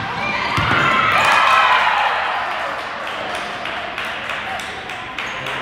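A volleyball struck with a thud about half a second in, then players and spectators shouting and cheering as the rally ends, dying down into crowd murmur with scattered claps. Echoing in a large gym hall.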